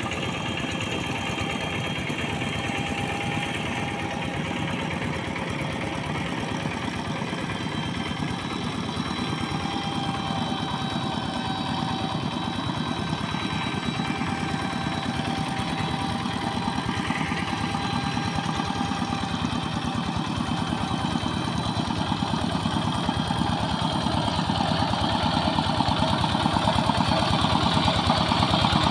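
Single-cylinder Yanmar TF diesel engine of a Quick TL800 two-wheel hand tractor running steadily under load as its cage wheels churn through flooded paddy mud. It grows louder over the last few seconds as the tractor comes close.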